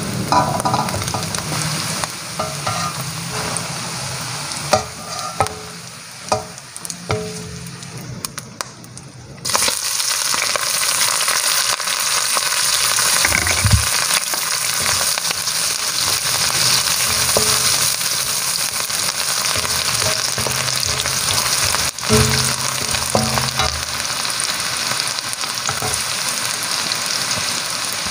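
Salted fish frying in oil in a stainless steel wok, a wooden spatula scraping and knocking against the pan. About nine seconds in, a much louder steady sizzle takes over as sliced shallots fry in the hot oil.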